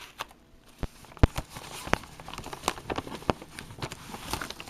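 Packaging being handled and opened up close: a run of irregular sharp clicks and knocks over a rustling crackle, starting about a second in.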